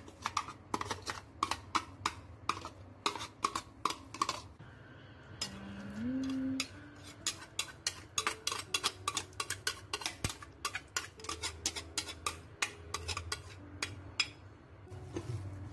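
Metal spoon clinking and scraping against glass bowls, a quick series of sharp taps as seasoning is scooped and knocked off into the filling. A brief low rising tone sounds about six seconds in, during a pause in the clinking.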